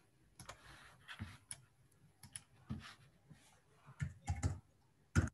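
Irregular clicks and taps of a computer mouse and keyboard, about a dozen spread over several seconds, the sharpest just before the end.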